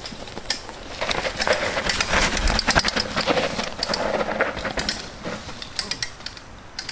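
Mountain bike rolling down a dirt trail past the microphone: tyres crunching and crackling over dry ground, with scattered clicks and rattles. It grows louder about a second in and fades as the bike rides away.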